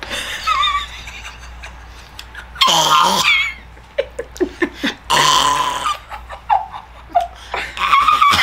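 Women's wordless cries and laughter in reaction to the sourness of a Warheads extreme sour candy, with loud, wavering squeals about 3 and 5 seconds in and again near the end.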